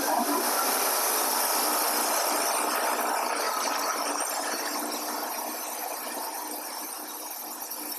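Wood-Mizer LT40 Wide portable band sawmill running, its band blade cutting through an oak log with a steady hiss. The sound slowly gets a little quieter.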